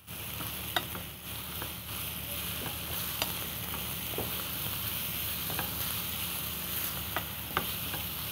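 Grated carrots and onion sizzling in a frying pan while a wooden spatula stirs them, with scattered sharp clicks as the spatula knocks and scrapes the pan.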